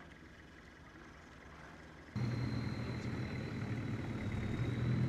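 Longtail boat engine running steadily, cutting in abruptly about two seconds in, with a thin high whine above it.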